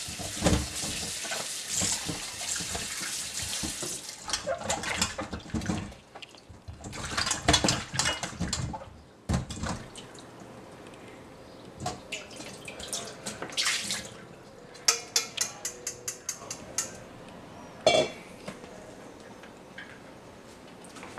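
Kitchen tap running over whole eggplants held above a stainless steel bowl in the sink: a steady stream of water for the first few seconds, then bursts of splashing as the eggplants are rinsed and turned. Later come a quick run of small clicks and a single sharp knock as they are handled.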